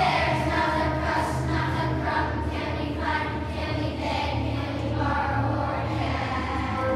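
A choir of third-grade children singing together over instrumental accompaniment with a steady bass line.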